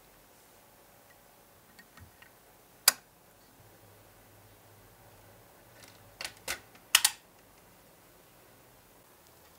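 Sharp clicks and knocks of a 1:18 scale Lamborghini Reventón model car's body shell being handled and seated onto its chassis. There is one click about three seconds in, then a quick cluster of four about six to seven seconds in.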